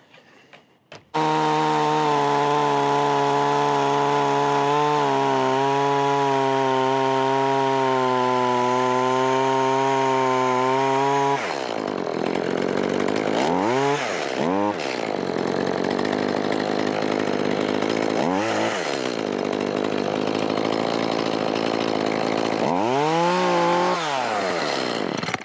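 Battery chainsaw running at a steady whine for about ten seconds, then cutting into timber. Its pitch sags and recovers several times under load, and it stops near the end.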